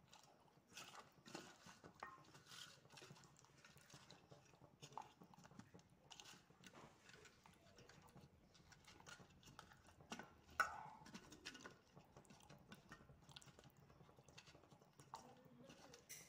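Faint wet squelching and patting of hands rubbing a spice-paste marinade into a whole raw chicken in a steel bowl, as irregular small clicks and squishes. One sharper knock about ten seconds in.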